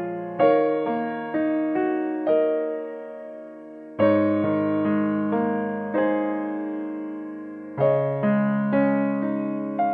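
Background piano music: a slow tune of single notes and chords, each struck and dying away, with a fuller chord about four seconds in.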